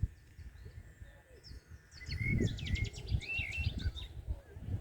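A songbird singing a varied, warbling phrase with rapid trills. It starts about a second and a half in and runs for about two and a half seconds, over a low rumble.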